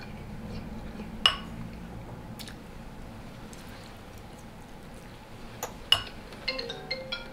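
Eating utensils clinking against a dish during a meal: a few separate sharp clinks, the loudest about a second in and two close together near the six-second mark.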